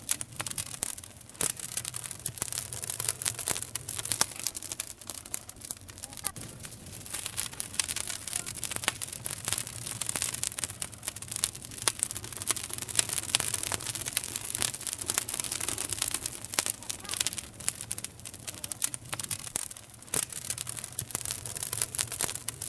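Wood campfire burning, crackling steadily with frequent sharp pops.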